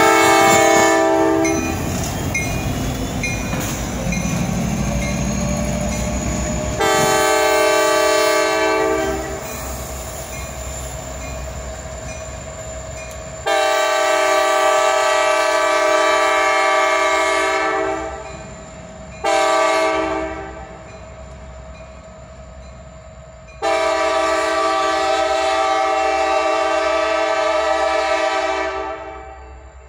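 CSX diesel locomotives rumbling past close by, with a faint rising whine. Then the lead locomotive's air horn sounds the grade-crossing signal in a chord of several notes: long, long, short, long.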